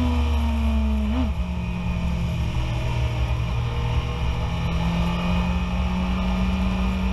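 BMW S1000RR's inline-four engine pulling under a rider on track, heard over wind rush: its pitch eases down, then about a second in a quick upshift from second to third drops it lower, after which it slowly climbs again as the bike accelerates.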